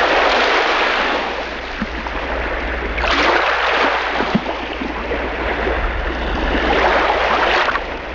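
Sea water sloshing and washing at the surface, in swells that rise at the start, about three seconds in and again about seven seconds in.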